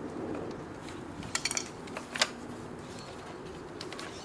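Plastic bumper-trim clips on a Mini Cooper S R56 clicking and snapping as the grille and fog-light trim piece is pried and pulled off its tabs: a quick cluster of clicks about a second and a half in, then one sharp snap a little after two seconds.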